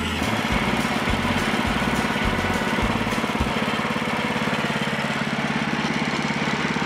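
Woodland Mills HM130 bandsaw mill's small gas engine running steadily while the band blade cuts through a beech log. Background music plays over it for the first half and stops about halfway through.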